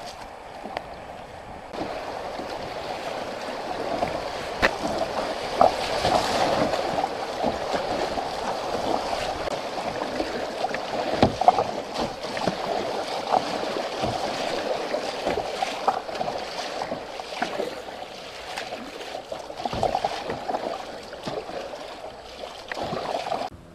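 River water rushing and splashing against a plastic kayak's hull as it runs through choppy broken water, with many small slaps and knocks. It gets louder about two seconds in and cuts off suddenly near the end.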